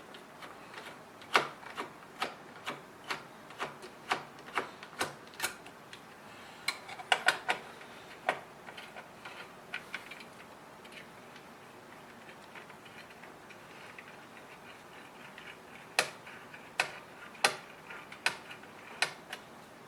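Sharp clicks in short runs, about two a second, as a screwdriver turns out the CPU cooler's mounting screws; a quiet stretch in the middle before a last run of clicks near the end.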